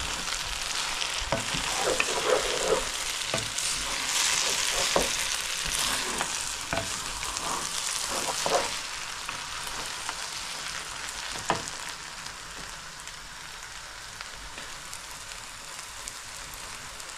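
Rice and meat sizzling in ghee in a large non-stick wok while a wooden spoon stirs and scrapes through them, with scattered knocks of the spoon against the pan. The stirring thins out after about ten seconds, and the sizzle grows quieter toward the end.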